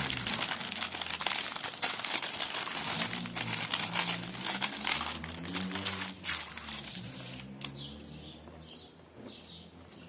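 Clear plastic packaging bag crinkling and crackling as hands unwrap a plastic bicycle mudguard, dense for about seven seconds and then dying away near the end.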